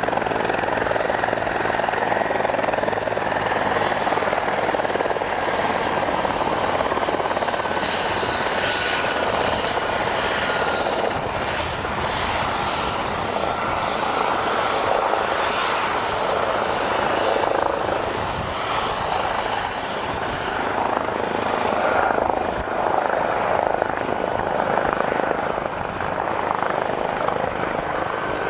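Aircraft turbine engines running steadily with a loud rushing noise and a high whine, one tone sliding slowly down in pitch over the first half and a higher one rising near the end.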